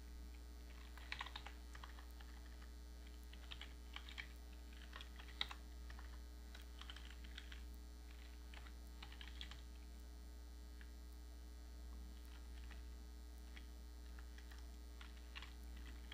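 Computer keyboard keys clicking in short, irregular bursts of typing, over a steady low hum.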